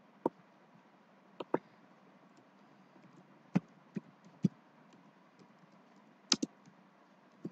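Computer keyboard keystrokes as a word is typed: scattered, irregular key clicks, some in quick pairs.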